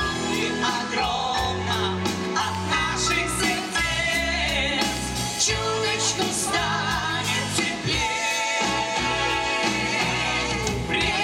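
Live pop-rock band playing a song: two women singing, backed by electric guitar, bass guitar and a drum kit, with a steady beat.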